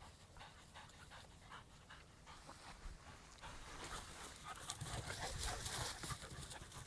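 Puppies playing on grass: faint short puffs of dogs panting and scuffling, with a louder rustling stretch from about four to six seconds in.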